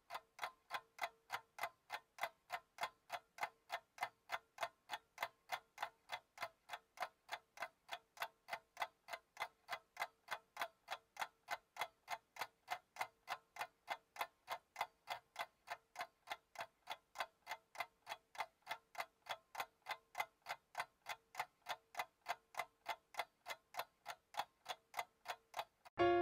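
Clock ticking steadily, about three ticks a second.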